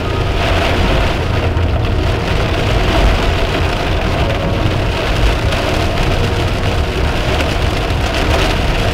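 Heavy rain drumming on a car's roof and windscreen, heard from inside the cabin, over a steady low rumble of the car driving on a flooded road.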